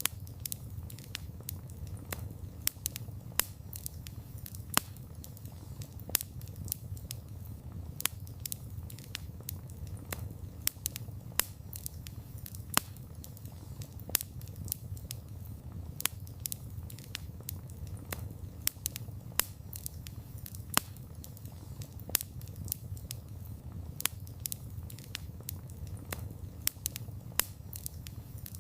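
Wood campfire crackling, with frequent irregular sharp pops and snaps of burning wood over a steady low rumble.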